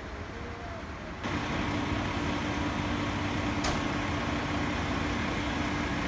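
Steady mechanical hum of an idling vehicle engine. It starts suddenly about a second in and cuts off just at the end, with one short click near the middle.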